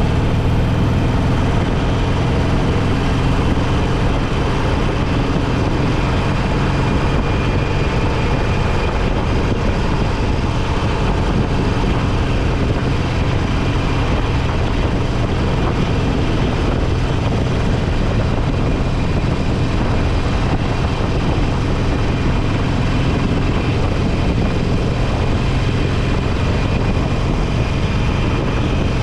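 Motorcycle engine running steadily while riding along, its note holding even with no big changes in revs.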